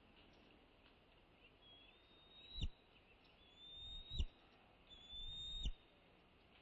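Bald eagle calling: three high whistled calls, each rising slightly, about a second long and cut off by a sharp click. These are alert calls.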